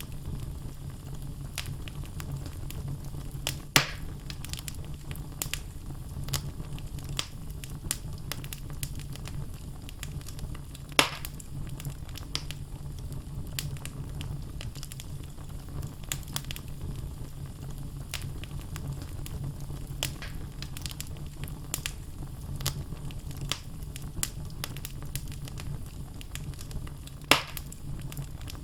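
Wood fire burning in a fireplace: steady low rumble of the flames with constant small crackles, and three louder pops, about four seconds in, about eleven seconds in and near the end.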